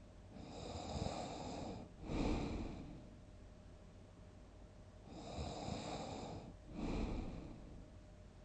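A sleeping person snoring heavily: two snores about five seconds apart, each a drawn-out breath of about a second and a half followed straight away by a shorter, louder one.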